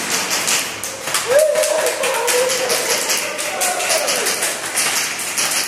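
Rapid, irregular sharp clicks and snaps of airsoft gunfire inside a room of a building.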